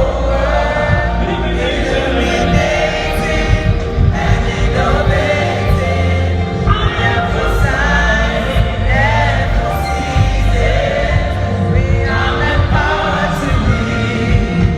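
Gospel music: a choir singing over steady band accompaniment with a strong bass.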